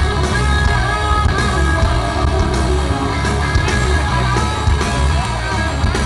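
Rock band playing live through a large outdoor PA, heard from within the audience: electric guitars, bass and drums with a singer over a heavy, booming low end.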